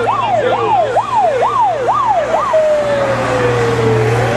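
Electronic siren in a fast yelp, about two and a half up-and-down sweeps a second, switching about two and a half seconds in to a slow wail that falls and then starts to rise.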